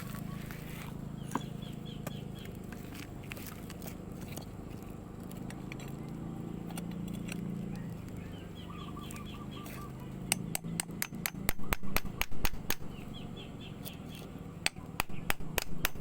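Chickens clucking in short runs of repeated notes over a steady low hum. Two bursts of rapid sharp clicks or knocks, the loudest sounds, come in the latter part.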